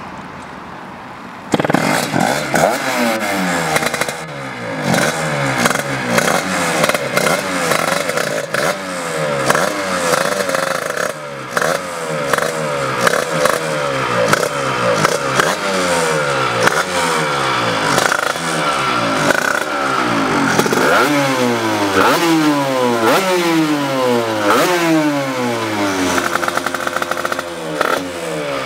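1987 Honda RS125 RF production racer's 125 cc single-cylinder two-stroke engine starting about a second and a half in, then revved over and over in quick blips, its pitch sliding back down after each one.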